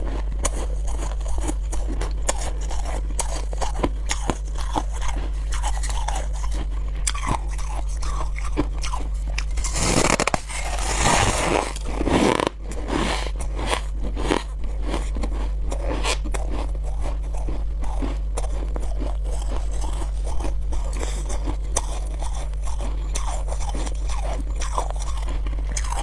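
Close-miked crunching and chewing of chunks of freezer frost ice: a steady run of crisp crunches, with a louder, denser stretch of crunching from about ten to twelve and a half seconds in. A steady low hum runs underneath.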